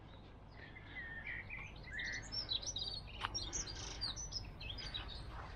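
Small songbirds singing: a quick run of varied high chirps and warbled notes, busiest in the middle of the stretch.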